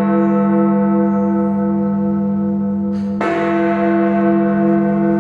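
A large bronze clock bell in the Westminster clock tower belfry, struck by its hammer and ringing on with a pulsing hum. A second hammer blow lands about three seconds in.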